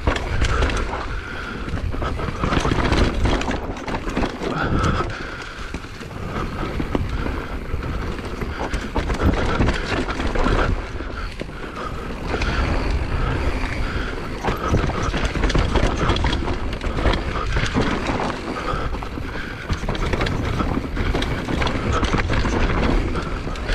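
Mountain bike descending a rough, dusty trail at speed: tyres rolling over dirt and rocks with constant knocks and rattles from the bike over bumps, mixed with wind noise on the GoPro microphone.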